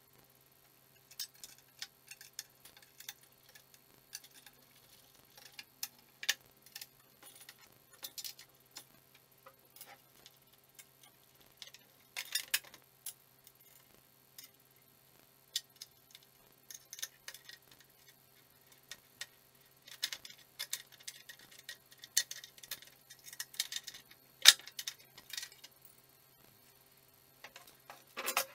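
Irregular metallic clicks, ticks and clinks of an adjustable wrench, nuts and bolts being worked on a steel go-kart frame, with a few louder knocks of metal on wood.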